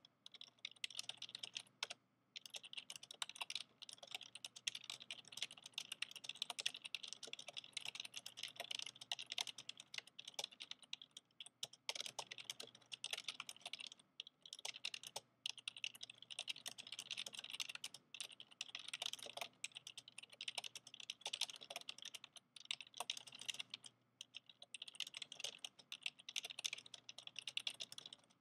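Fast, continuous typing on an old PC's clicky keyboard: a dense run of key clicks and clacks, broken by short pauses a few times.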